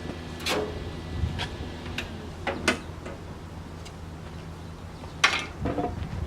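Scattered sharp clicks and taps of hand work on sheet metal, with one louder knock about five seconds in, over a steady low hum.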